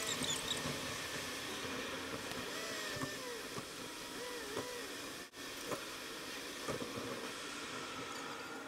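Steady road and engine noise inside a moving car, picked up by a dashboard camera's microphone, with faint wavering pitched sounds, like distant singing or a radio, over it. The sound drops out for an instant about five seconds in.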